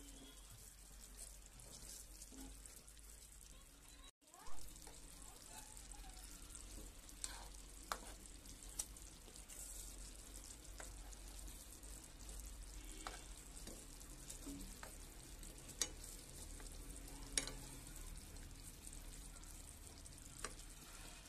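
Semolina patties shallow-frying in hot oil, a steady fine sizzle. A few sharp clicks of a metal spoon against the pan as the patties are turned, the loudest just after a brief dropout about four seconds in.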